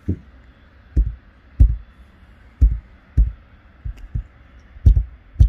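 A run of dull thumps on a car's sheet-metal roof, about eight in a few seconds at uneven half-second to one-second spacing, each with a short click on top, as a child's heels knock against the roof.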